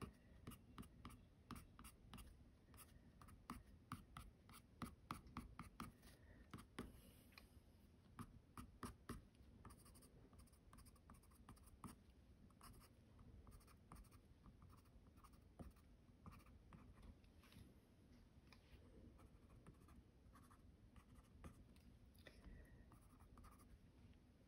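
White colored pencil tip dabbing short strokes and dots onto toned mixed-media paper to make water droplets: faint quick ticks, many of them close together for about the first ten seconds, then sparser.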